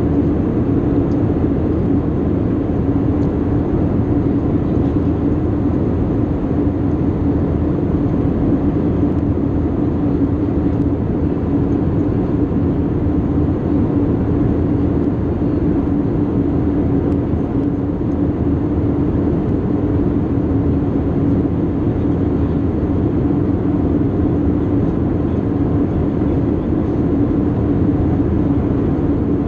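Cabin noise of an Airbus A320-232 in cruise, heard inside the cabin at a window seat: a constant rush of airflow and the drone of its IAE V2500 turbofans, with a steady low hum and no change throughout.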